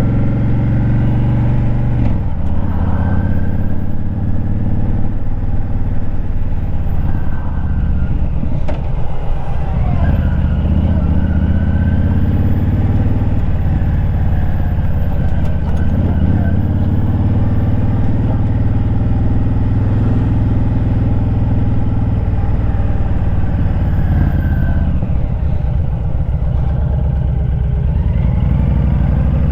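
Motorcycle engine running while the bike is ridden, a steady engine note that drops and climbs back a few times, about 2 s, 9 s and 25 s in, as the throttle changes.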